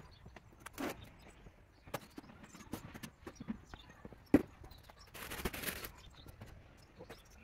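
Scattered knocks and scuffs, like steps and things being handled, with one sharp knock about four and a half seconds in and a short scraping rush just after five seconds.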